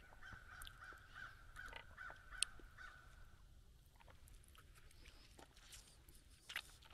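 Near silence: faint outdoor ambience, with a faint steady high tone for about the first three and a half seconds and a few light clicks.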